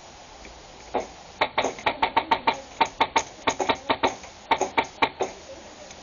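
Airsoft gun firing a rapid string of about twenty sharp shots. They come in quick runs of several a second, broken by brief pauses, starting about a second in and stopping a little after five seconds.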